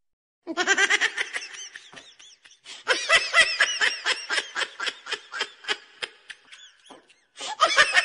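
Giggling laughter in quick pulses, several per second, starting about half a second in, easing off, then pausing briefly before another burst near the end.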